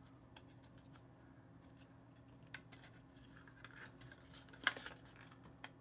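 Thin printed cardboard being folded and its tabs pushed into slots: faint scrapes and small clicks, with a slightly louder click near the end as a piece locks into place.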